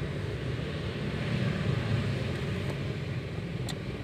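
Datsun Go idling with its air-conditioning blower fan running: a steady low hum with a whirring hiss over it, and one faint tick near the end. The blower has something lodged in it, which the mechanic takes for the cause of its odd noise.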